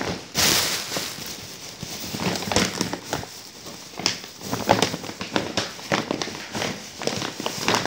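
Thin plastic bag rustling and crinkling in irregular bursts as it is pulled open and handled, with a loud rush of crinkling about half a second in.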